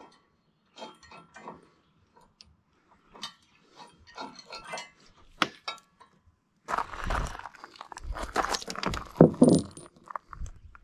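Small steel nuts and washers clicking and clinking as they are unscrewed off bolts and handled by hand. In the last few seconds there are louder knocks and scuffs as the parts are set down on a plywood board.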